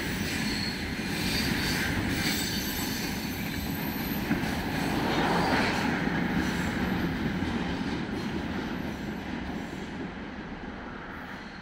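Freight train of railway tank wagons rolling past on steel wheels and rails, a steady rumble with a thin high wheel squeal in the first couple of seconds. The noise fades over the last few seconds as the train moves away.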